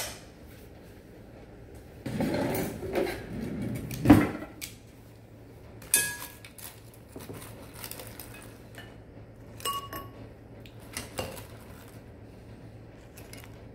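Serving utensils scraping and clinking in a glass salad bowl as spinach salad with croutons is lifted out into a small ceramic bowl: a rustle of leaves for a couple of seconds, a knock about four seconds in, then a few light clinks that ring briefly.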